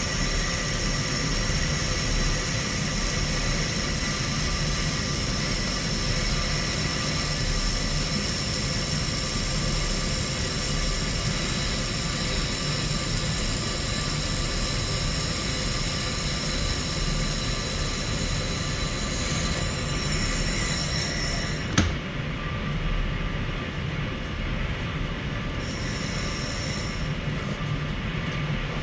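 Handheld laser welder running, brazing silicon bronze wire onto galvanized steel, with a steady high-pitched whine over a hum. The whine cuts off with a click about 22 seconds in, leaving the lower hum, and comes back for about a second a little later.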